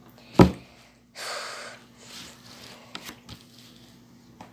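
A single sharp knock, plastic on plastic as the lid is pushed back onto a slime container, then a short breathy snort and a couple of faint clicks.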